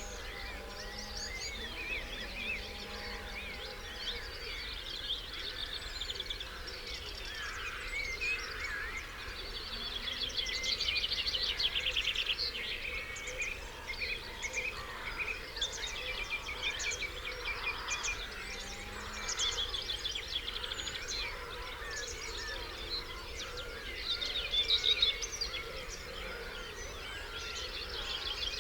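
Dawn chorus: many songbirds singing over one another, with rapid trills that are loudest about eleven seconds in and again near the end.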